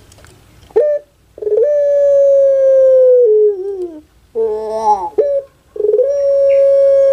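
Puter pelung, a domestic ringneck dove (Streptopelia risoria), singing its long call. A short note comes about a second in, then a long held coo of a few seconds that drops in pitch at its end. A shorter call with several tones follows, then another long held coo.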